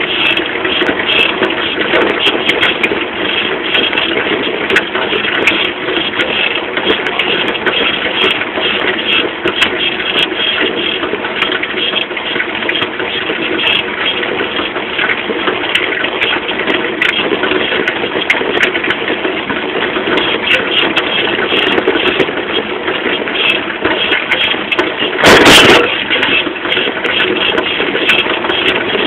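Small moped engine running steadily, heard close up from beside the rear wheel and shock absorbers. One short, loud burst of noise comes about three-quarters of the way through.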